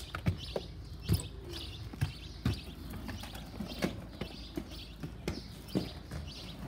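Inline skates knocking and clacking on concrete as the skater steps down the steps and pushes off on the pavement: hard, uneven knocks every half second or so.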